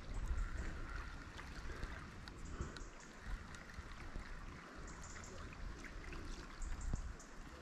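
River water flowing: a soft, steady rush with a few faint ticks.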